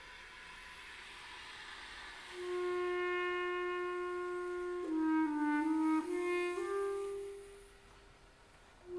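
Clarinet and basset horn quintet playing slow sustained music. A faint airy hiss swells first; about two seconds in a single long note enters, and other instruments join with short shifting notes around the middle before it fades to a pause, with a new held note starting at the very end.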